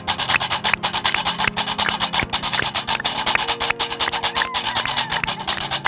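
A fast, steady percussive rhythm of sharp clicks or taps, many to the second, like a drum beat, with a low steady tone underneath.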